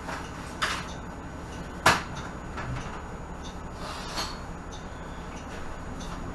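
Cabin of a 2018 Nova Bus LFS diesel city bus idling at a standstill: a steady low hum, with a few sharp clacks and rattles, the loudest about two seconds in.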